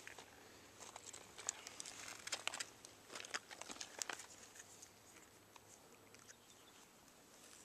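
Faint rustling and crinkling of a mesh butterfly net being handled, with small clicks as a container is worked inside it to scoop out a trapped stink bug; the handling noise dies down after about four seconds.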